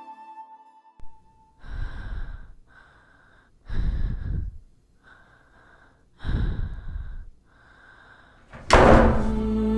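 A woman's heavy breathing while crying: six long breaths, in and out, each about a second. Near the end, background music comes in suddenly with a loud hit.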